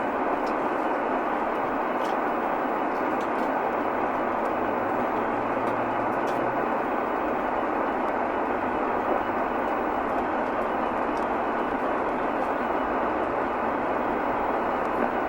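Steady radio static hiss from an open communications channel between transmissions, thin and band-limited like sound through a radio speaker.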